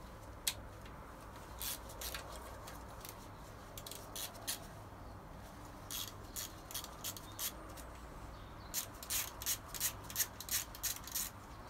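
Ratchet clicking in short runs as the bolts of the second cam cover on a Toyota 4A-GE engine are undone. The clicks are scattered at first, then come several a second, quickest near the end.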